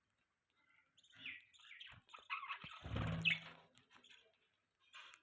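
Budgerigars chirping and chattering, starting about a second in, with a brief low rumble underneath about three seconds in, then a short lull before the chirping picks up again near the end.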